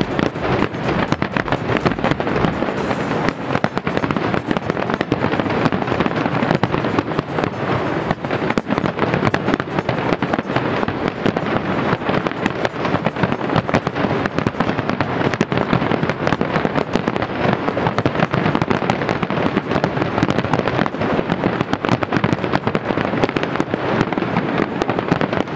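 Aerial fireworks display: a dense, unbroken barrage of bangs and crackling from bursting shells.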